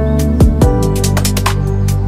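Electronic background music with a steady beat: deep kick drums that drop in pitch and crisp hi-hat ticks over sustained notes.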